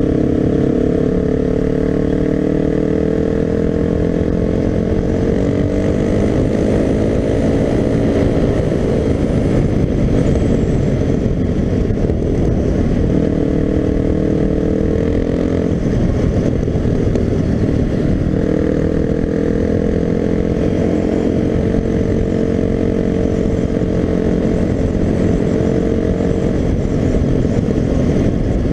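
Suzuki DR-Z250's single-cylinder four-stroke engine running at road speed, heard under heavy wind rumble. The engine note climbs about five to eight seconds in, then sinks beneath the wind twice, around ten and seventeen seconds in.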